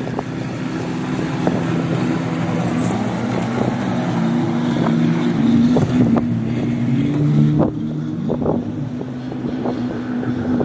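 Jet ski engine running on the water, its pitch shifting up and down as it rides, with wind buffeting the microphone.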